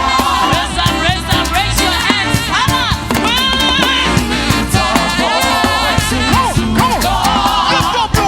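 Energetic afro gospel praise music: voices singing with a choir over a band with a steady, driving beat.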